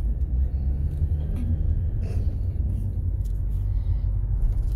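Steady low road and engine rumble of a car driving along a town street, heard from inside the cabin.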